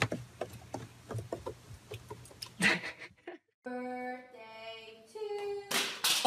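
Faint scattered clicks and taps over a low hum, then after a brief cut a voice singing a few long held notes, ending in a short, loud burst of noise.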